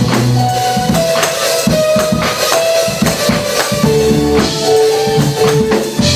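Gospel praise band playing an instrumental stretch: drum kit and tambourine keeping a steady beat under held chords and bass.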